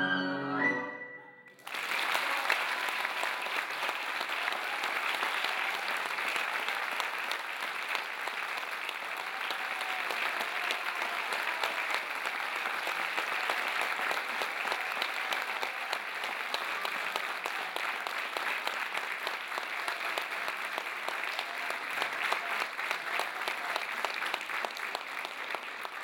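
Music ends on a held high note, and about a second and a half in an audience breaks into sustained applause that continues steadily.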